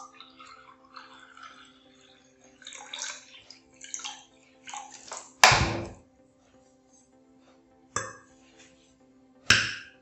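Water poured from a bottle into a drinking glass, then a loud knock about halfway through as a glass is set down on the table, and sharp clinks of a metal fork against a ceramic plate near the end, over faint background music.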